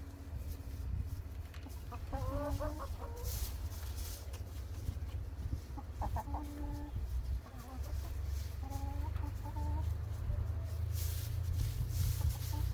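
Chickens clucking in a few short bouts, over a steady low rumble.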